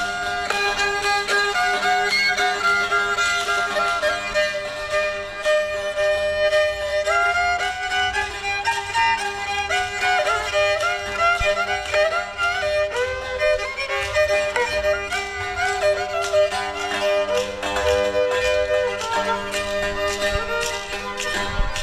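Instrumental music: a melody that slides up and down between notes over steady held low tones.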